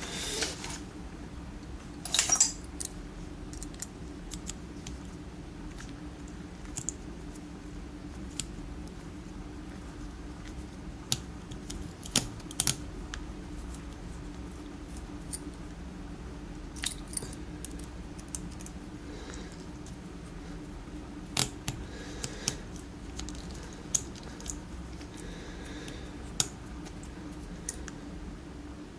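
Small metal clicks and taps, scattered and irregular, as a Medeco Biaxial lock cylinder is handled with tools to take it apart, over a steady low hum.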